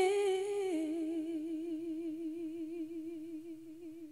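Unaccompanied woman's singing voice holding a long note with a slow vibrato, stepping down in pitch once about a second in and then fading out.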